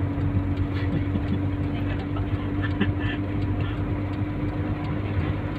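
Honda car's engine running steadily with road noise while driving, heard inside the cabin as a steady drone with one constant tone in it.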